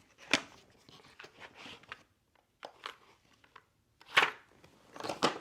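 Objects being handled and set down on a tabletop: several sharp knocks and clacks, the loudest about a third of a second in, just after four seconds in and near the end, with light rustling in between.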